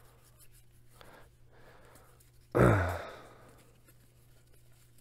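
A person's short sigh, starting suddenly about two and a half seconds in and falling in pitch as it fades. Underneath are the faint rustle and ticks of baseball cards being thumbed through by hand, and a steady low hum.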